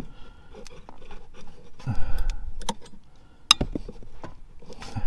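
Scattered light clicks and metallic taps from hands working a van's heater core lines and hose clamps under the dash, with one sharp click about three and a half seconds in.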